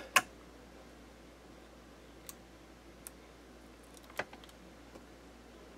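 A sharp click as the power is switched back on, followed by a few faint clicks from handling the valve amplifier chassis. No hum or motor sound follows: the set still has no power.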